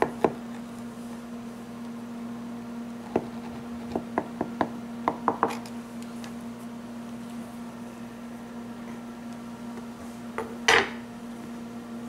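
Butter knife tapping and scraping against the rim of a metal pie pan while excess pie crust is trimmed off, in scattered light clicks. There is a louder knock near the end, and a steady low hum underneath.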